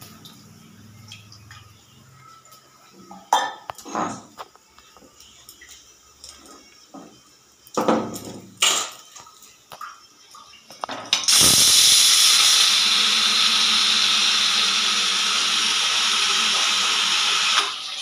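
Pressure cooker's weighted whistle valve: a few short sputters and rattles as steam spurts past the weight. About 11 s in, a loud, steady hissing whistle of escaping steam sets in and holds for about six seconds before dropping near the end. Foam from the boiling food is forced out around the vent with the steam.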